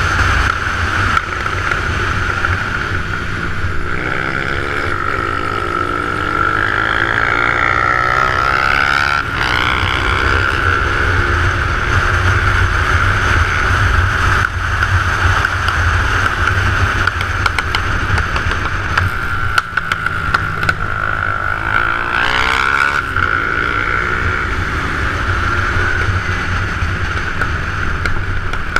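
Motorcycle riding at speed: heavy wind rumble on the camera microphone over a running engine, with a steady high tone. The engine pitch rises and falls twice, once several seconds in and again past the middle, as the revs change.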